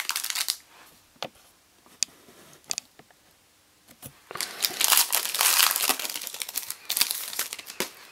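Wrapper of a 2015-16 Panini Donruss basketball card pack crinkling briefly, then a few light ticks. About four seconds in, a pack is torn open, with several seconds of crinkling and tearing of the wrapper.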